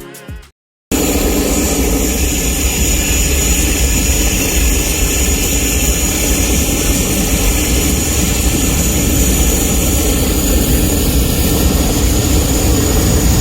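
Boeing 737-700's CFM56-7B turbofan engines at takeoff power: a loud, steady jet rush with a thin high whine on top, starting abruptly about a second in after a moment of silence.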